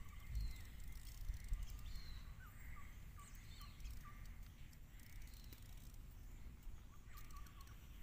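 Faint, short bird chirps repeating over a low outdoor rumble.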